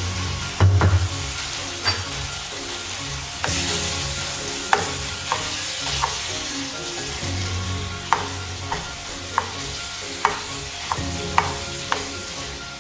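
Chicken pieces sizzling steadily in olive oil and white wine in a nonstick frying pan. There is a dull knock about a second in, and from about five seconds in a plastic spoon stirs the pan, clicking and scraping against it about once a second.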